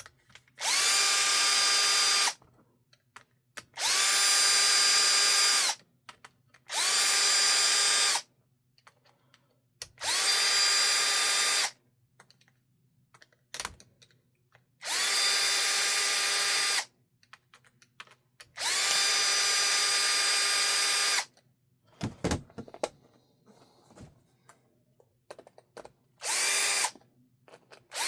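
Small power drill running in seven separate bursts of about two seconds each. Every burst spins up fast to a steady whine and then stops. Light clicks and taps of handling come in the pauses.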